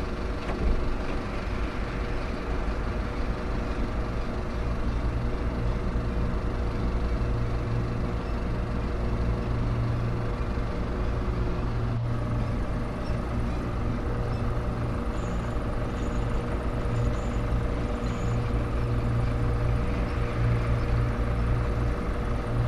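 A loud, steady, engine-like mechanical drone with a deep rumble and several held tones, unchanging throughout.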